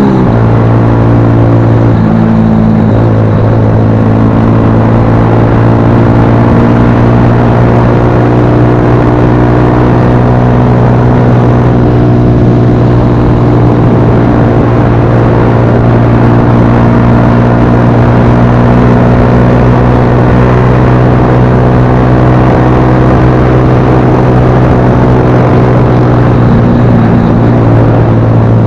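Motorcycle engine running steadily at cruising speed, heard on board the moving bike.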